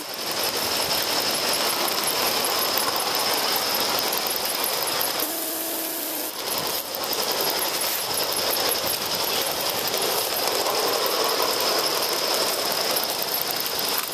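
Aster Gauge 1 live-steam Union Pacific Challenger model locomotive running under load while pulling a train, giving a rapid, machine-like beat of exhaust chuffs and wheel clatter.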